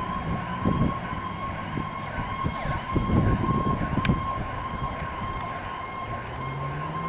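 Fire engine siren sounding as the Pierce Enforcer pumper drives away, with a steady high tone and a low wail that winds up in pitch near the end.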